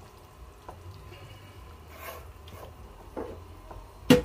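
Wooden spoon stirring thick bolognese sauce in a non-stick frying pan, with a few faint clicks and one sharp knock about four seconds in.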